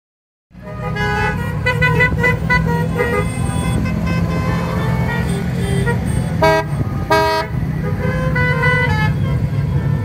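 Many classic car horns tooting in short repeated beeps at several different pitches, with two louder toots about six and seven seconds in, over the steady low rumble of car engines.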